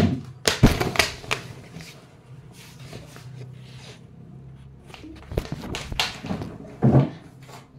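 Knocks and clatter of a plastic chair and shuffling as a person gets up out of it and moves about beside it: a loud knock at the start, a quick run of knocks just after, and a few more knocks between about five and seven seconds in.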